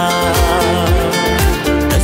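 Upbeat music from a Nyishi celebration song, with sustained instrument tones over a steady beat of about two drum beats a second.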